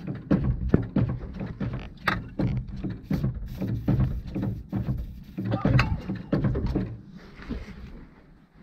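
1952 GMC truck engine running roughly and sputtering, with uneven pops over a low rumble, then dying away near the end.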